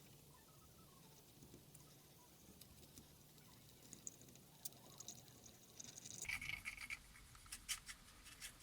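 Faint scratchy rubbing of a cotton swab wet with isopropyl alcohol, scrubbing the contact pads of a remote control's circuit board. The rubbing gets busier, with small clicks, from about six seconds in.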